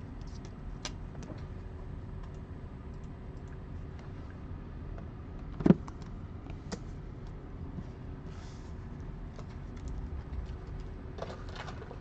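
Trading cards and cardboard card boxes handled on a table: scattered light clicks and taps, with one sharp knock about halfway through, over a faint steady hum.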